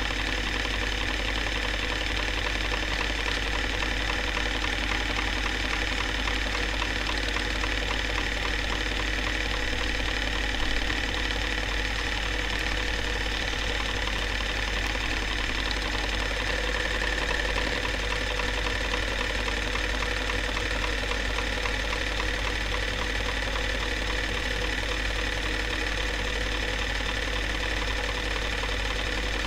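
Home-movie film projector running: a steady motor whir with a rapid, even clatter from the film transport over a constant low hum.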